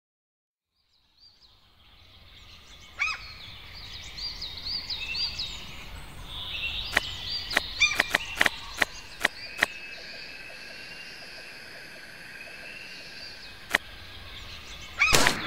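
Online slot game's jungle ambience: bird chirps and calls over a steady rainforest hiss, fading in after about a second of silence. A quick run of sharp clicks comes in the middle, and a louder burst of calls comes right at the end.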